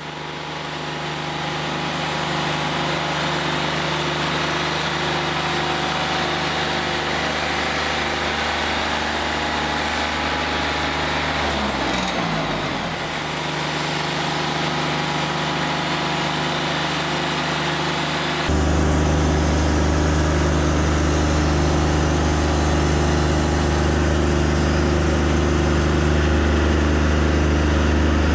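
Wood-Mizer LT40 Wide portable bandsaw mill running while it saws a short apple log, its engine holding a steady note. About twelve seconds in the engine pitch dips and comes back up, and from about eighteen seconds the sound turns suddenly louder and deeper.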